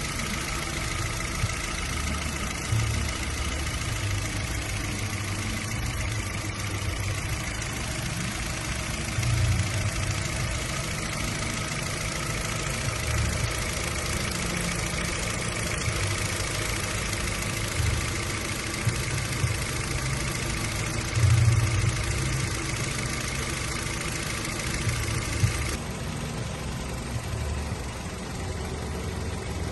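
Car engine idling steadily, with a few brief louder swells in its low rumble. Near the end the sound turns duller as the upper hiss drops away.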